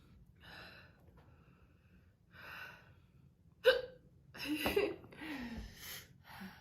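A woman hiccups with a sharp, sudden catch about halfway through, between softer breathy sounds, with more breathy vocal noise just after. The hiccups come on after she has eaten very hot pepper powder.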